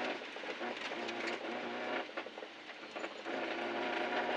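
Nissan 240SX rally car's engine heard from inside the cabin, running hard on a gravel stage, over the rumble and rattle of the gravel under the car. The engine note eases off for about a second midway through, then pulls again.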